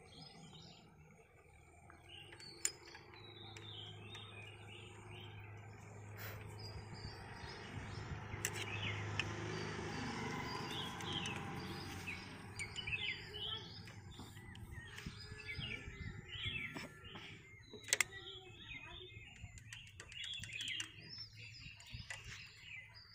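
Small birds chirping in the background, with a faint low hum through the first half and a few sharp metallic clicks of a spanner on the engine's rocker-arm adjusting nut.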